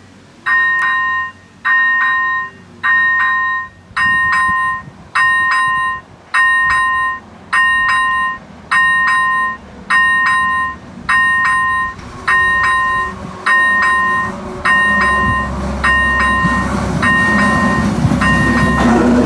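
Electronic level-crossing warning signal sounding a steady two-tone ding, repeating a little over once a second. Toward the end, a low rumble from the railbus running nearby swells up under it.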